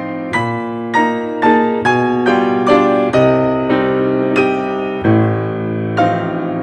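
Calm background piano music: notes and chords struck about twice a second, each ringing and fading.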